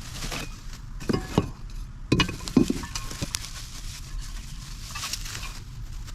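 Storage-rack parts being handled: a few scattered light knocks and clinks at uneven intervals, with soft rustling between them.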